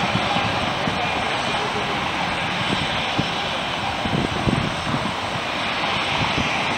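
Boeing 747 jet engines, a steady loud roar as the freighter rolls along the runway.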